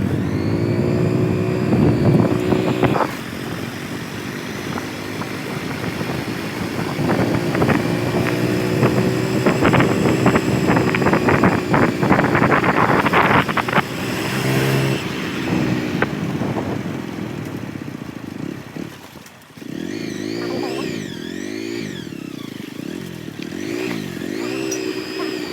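Motorcycle engine running under way, with road and wind noise and a spell of knocks and rattles around the middle. Near the end the engine pitch rises and falls repeatedly as the throttle changes.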